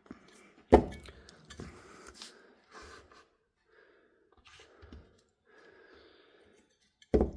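Handling sounds on a workbench: a sharp knock about three-quarters of a second in as a multimeter is set down, then light taps and rustles, and another sharp knock near the end.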